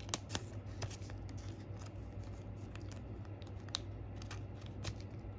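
Thin clear plastic penny sleeve crinkling and ticking as it is opened and a trading card is slid into it, with a cluster of small crackles in the first second and a few more later, over a steady low hum.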